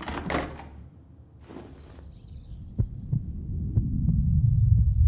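A tension sound effect: a low rumble that swells louder through the second half, punctuated by sharp heartbeat-like thumps. It follows two short rustling bursts near the start.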